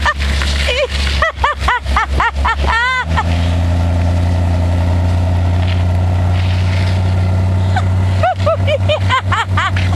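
Range Rover's V8 engine pulling steadily at low speed, its pitch stepping up about three seconds in. People laugh in quick bursts at the start and again near the end.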